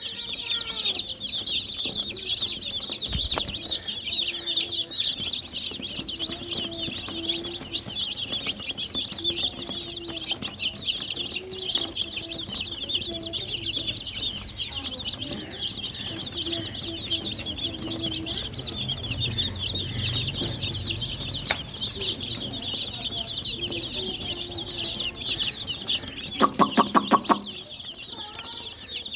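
A brood of baby chicks peeping continuously in a dense high chorus, with a hen clucking low and softly underneath. Near the end there is a brief burst of loud, rapid pulses.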